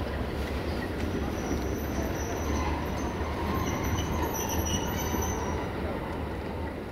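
Locomotive rolling slowly into the station with a steady low rumble. A thin, high metallic squeal from its running gear rises about a second and a half in and fades out near the end.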